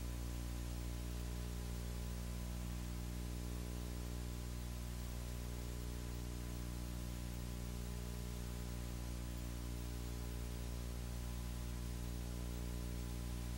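Steady electrical hum, a low buzz with a stack of even overtones, under a constant hiss, with no other sound.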